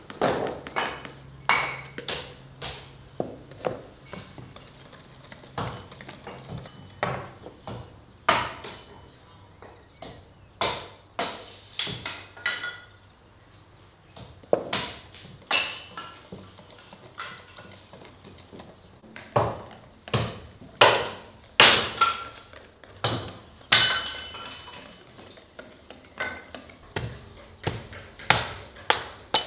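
A run of irregular sharp knocks and taps, some with a brief ring: kitchen utensils striking a bowl and sieve, then a hatchet splitting kindling on a wooden chopping block near the end.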